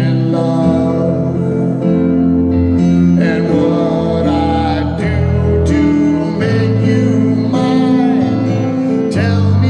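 A man singing into a microphone over instrumental accompaniment of held chords and a bass line.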